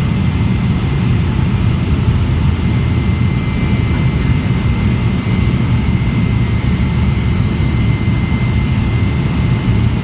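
Steady cabin drone of a DHC-3 Turbine Otter floatplane in flight, heard from inside the cabin: its Pratt & Whitney PT6A turboprop runs with a heavy low rumble and a thin, steady high whine over rushing air.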